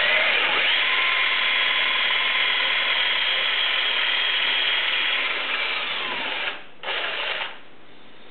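Electric drill boring a hole into a wooden propeller hub for a lead balance plug. It runs steadily for about six seconds, its pitch sags a little just before it stops, and a short second burst follows.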